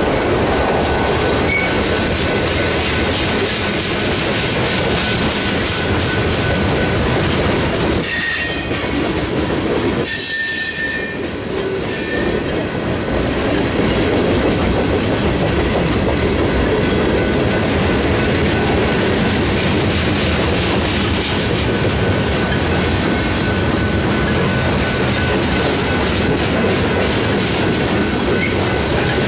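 Freight cars of a mixed manifest train (tank cars and covered hoppers) rolling past close by, with the steady noise of steel wheels on the rails. Short high wheel squeals come through about eight to twelve seconds in.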